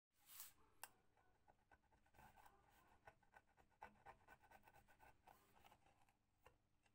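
Aluminium tape being rubbed down onto a rusty sheet-metal flashlight casing with a small flat metal tool: a faint run of short, quick scraping strokes, after a brief rasp and a click near the start.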